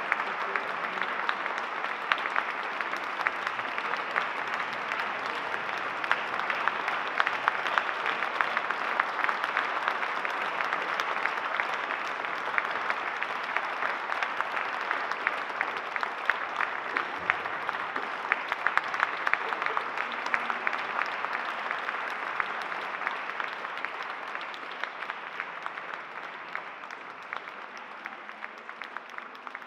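Audience applauding, a dense steady clapping that thins and fades over the last few seconds.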